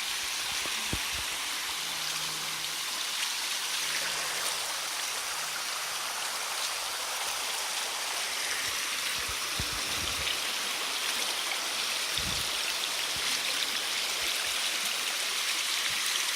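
Fast-flowing stream rushing steadily, with a few soft low thumps about a second in and again around the middle.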